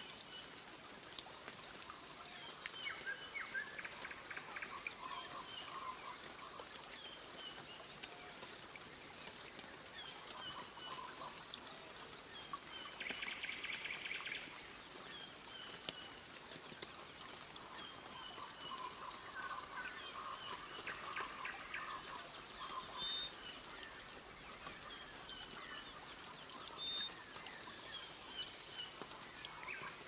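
Forest ambience: several birds calling over a steady background hiss, with short repeated chirps, warbling calls and one rapid trill about halfway through.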